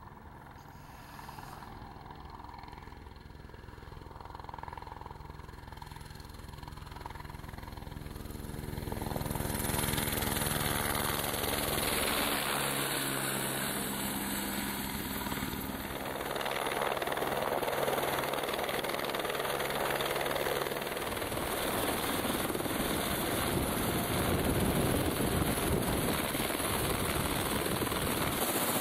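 Eurocopter AS350 A-Star helicopter coming in to land. It begins as a steadier pitched hum of rotor and turbine, then grows much louder about ten seconds in as it passes close overhead, becoming a loud rushing rotor noise as it settles onto the snow.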